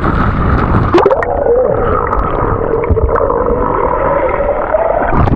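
Steady rushing of a waterfall and wind across the microphone. About a second in, a long wavering tone rises and is held for about four seconds over the rush.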